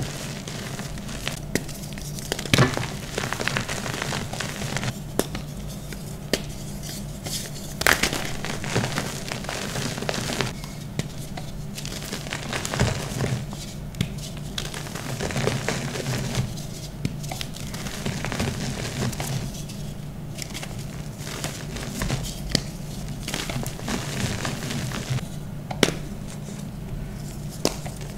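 Blocks of dyed gym chalk crumbled and crushed between fingers: continuous dry crackling and crunching, with a few sharp snaps as pieces break, the loudest about two and a half seconds in, around eight seconds in and near the end. A low steady hum runs underneath.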